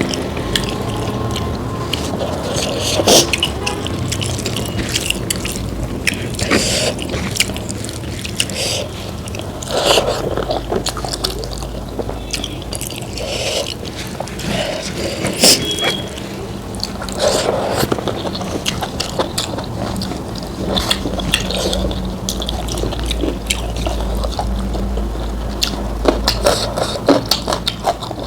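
Close-miked eating sounds: wet chewing and smacking of saucy food, with many short clicks and scrapes scattered throughout.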